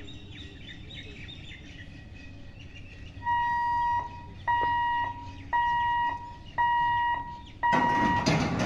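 Level-crossing warning hooter sounding a steady electronic beep about once a second, starting a few seconds in as the boom barriers lower to close the road for an approaching train; birds chirp before it starts. A loud burst of noise comes near the end.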